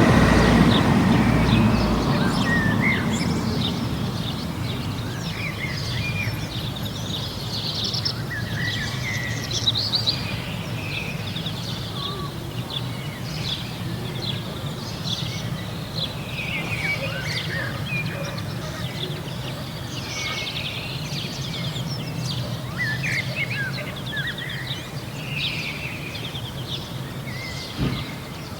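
Village street ambience: a passing car fades away over the first few seconds, then small songbirds chirp and twitter on and off over a steady low background hum.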